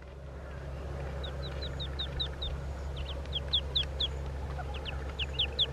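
Birds chirping: three quick runs of short, high, downward-sliding peeps, about five or six a second, over a steady low rumble.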